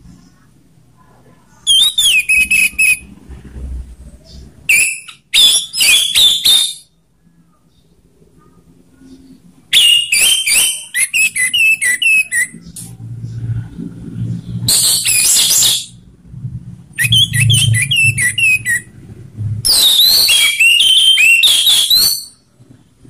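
Orange-headed thrush (anis merah) singing its loud full 'ngeplong' song: six bursts of rapid, high, whistled phrases with sweeping notes, each one to three seconds long, separated by short pauses.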